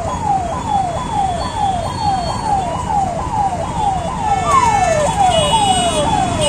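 Ambulance siren sounding in a fast, repeating falling sweep, about two sweeps a second, over traffic noise. A second, steady higher tone joins about four and a half seconds in.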